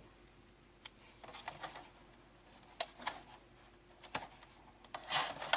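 Gorilla Tape being handled and pressed onto a cracked plastic RC truck body: scattered light ticks and crackles, with a brief louder rustle near the end.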